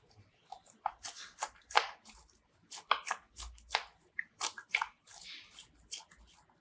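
Slime squishing as ASMR sound: an irregular run of short crackling pops, about a dozen in a few seconds.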